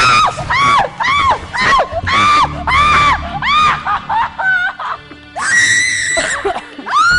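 Women screaming in fright: a run of short, high shrieks about two a second, then a longer held scream near the end, over background music.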